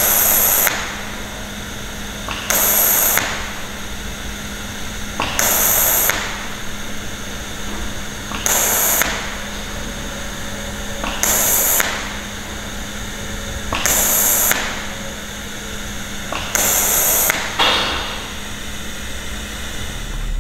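TIG welding arc struck in short spot pulses through a spot-welding nozzle, seven times at about three-second intervals, each burst lasting under a second, building an outside-corner seam dot by dot. A steady low hum runs underneath.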